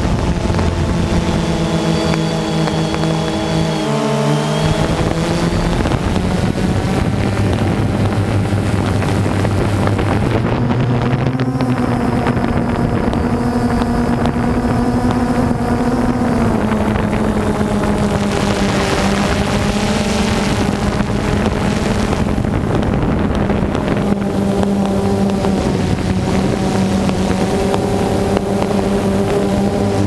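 DJI Phantom 2 quadcopter's electric motors and propellers whirring steadily right by the microphone. The whine shifts in pitch a few times as the motor speeds change to hold the drone in the air.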